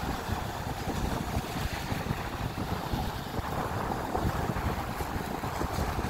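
Small waves breaking and washing up a sandy beach in a steady surf, with wind rumbling on the microphone throughout.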